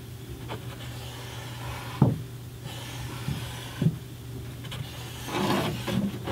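Marker and paper template scraping and rubbing against a car's firewall as the template is traced: scratchy rubbing in patches, with a few light knocks, over a steady low hum.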